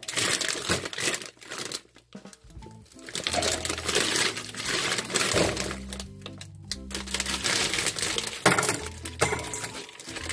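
Plastic bag of frozen shrimp crinkling and rustling as it is handled and opened, over background music with a steady bass line.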